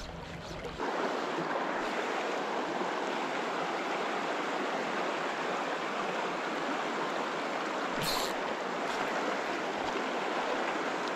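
Steady rush of a shallow, rocky river riffle, stepping up to a constant level about a second in. One brief click sounds about eight seconds in.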